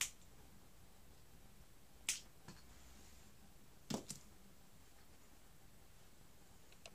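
Three sharp snapping clicks about two seconds apart, the last one doubled, against a quiet room.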